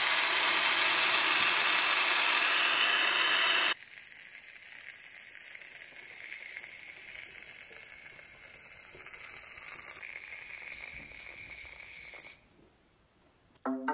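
Gillette shaving foam aerosol can spraying foam in a steady hiss, loud for the first few seconds, then quieter until it stops about twelve seconds in.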